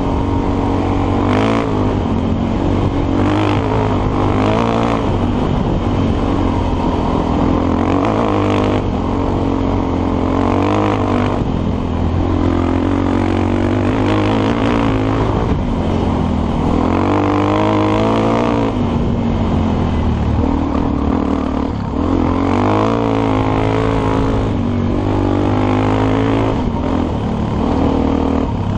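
Suzuki DR-Z400SM's single-cylinder four-stroke engine running under way on a dirt road, its pitch rising and falling over and over as the throttle is opened and closed.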